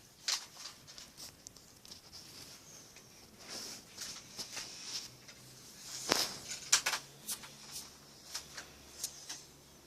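Soft rustling with scattered small clicks, a few louder ones about six to seven seconds in; no voice is heard.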